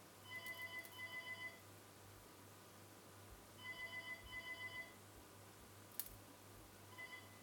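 Electronic door intercom ringing: two trills of rapid pitched beeps, each a little over a second long and about three seconds apart. A single sharp click follows, then a brief third trill near the end.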